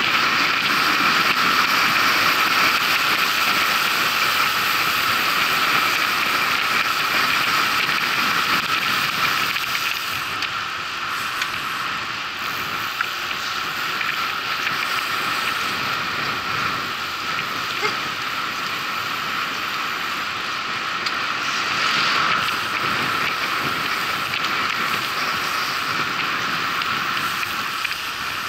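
Steady rushing noise of a bicycle ride: tyres rolling on the road and wind on the microphone, easing a little after about ten seconds.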